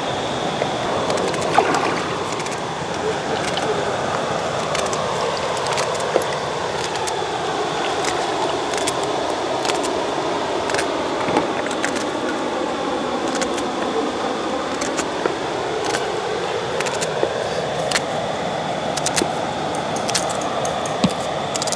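River water rushing steadily, with scattered sharp taps and clicks over it and a faint steady high tone above.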